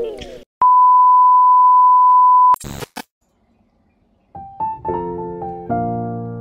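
A steady electronic beep at one pitch, held for about two seconds, followed by a short crackle. After about a second of silence, piano music begins, and guitar music fades out at the very start.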